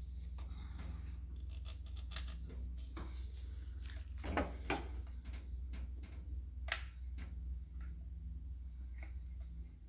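Scattered light clicks and rustles of spark plug wires being handled and pushed into place, with a short cluster about halfway through and a sharp click a little later, over a steady low hum.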